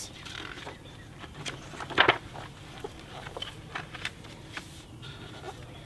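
Paper rustling and soft handling noises from a hardcover picture book as its page is turned, with one sharper paper flick about two seconds in.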